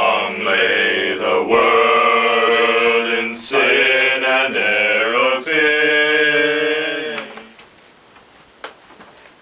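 Several male voices singing together in harmony, holding long notes; the singing stops about seven seconds in.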